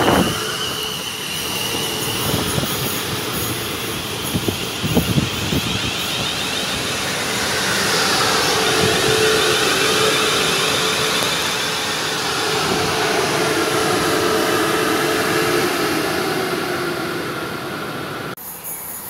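South Western Railway Class 450 Desiro electric multiple unit running along the platform: steady wheel-on-rail noise with a steady motor whine through the middle, cutting off abruptly near the end.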